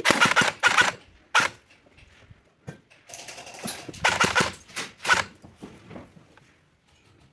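Airsoft electric rifle (AEG) firing several short bursts of rapid, clattering shots, one near the start and more about three to five seconds in.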